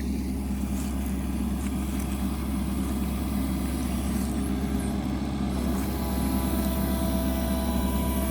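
Mini excavator's diesel engine running steadily while it digs. A faint higher whine joins in about halfway through.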